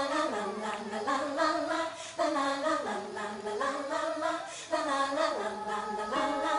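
Voices singing a cappella, sung phrases rising and falling with no instruments behind them.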